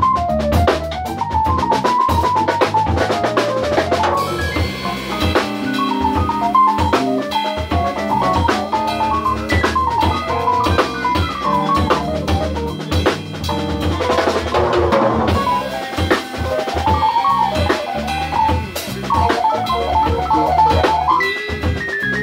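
Funk trio of electric piano, drum kit and bass playing live. The electric piano runs quick improvised melodic lines over a busy drum groove and bass line.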